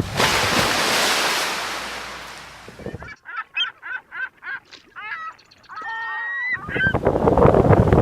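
Wind and surf hiss fades out over the first three seconds. It gives way to a bird calling: about eight short calls in quick succession, then a few longer, drawn-out calls. Wind and surf noise comes back near the end.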